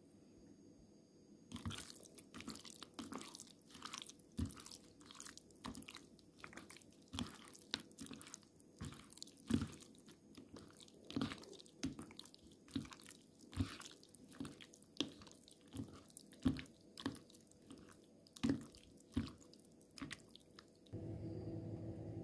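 A hand squeezing and kneading raw chicken skin strips in a wet egg-and-flour batter in a plastic bowl: irregular wet squelches and clicks, one or two a second. Near the end a steady hum takes over, a refrigerator running.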